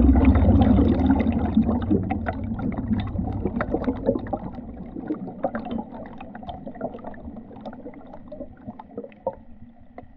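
Underwater bubbling and fizzing, with many small crackling pops, heard through water. A low engine rumble under it fades out over the first few seconds, and the crackle thins and grows quieter towards the end.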